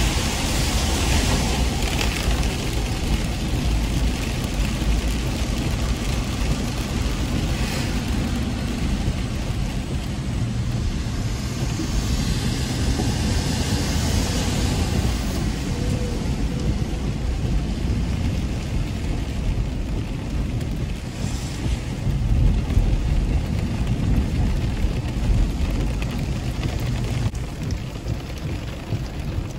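Car driving in the rain, heard from inside the cabin: a steady low road and engine rumble with a hiss of rain and wet tyres.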